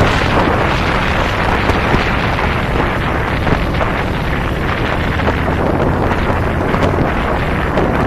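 Heavy wind buffeting the microphone on a moving cruiser motorcycle, over a steady low engine rumble and road noise.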